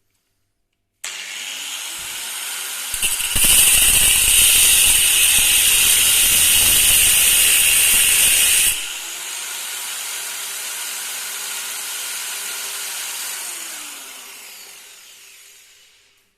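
An electric power tool switches on and spins up, then works under heavy load for about five seconds with a loud, harsh noise, likely cutting or grinding metal for the homemade bearing puller. It then runs free, is switched off and winds down over a couple of seconds.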